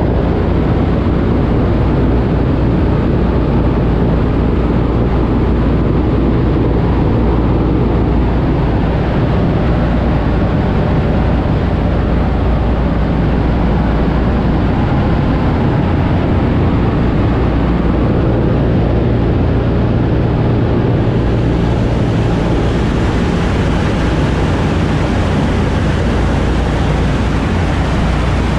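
Cabin noise inside a PBY-5A Canso flying boat in flight: its two Pratt & Whitney R-1830 Twin Wasp radial engines and propellers make a loud, steady drone under a constant rush of air.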